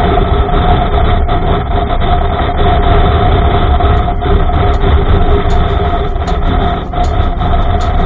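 Heavy wind noise buffeting the microphone over the steady running of a Honda Africa Twin's parallel-twin engine, cruising at road speed.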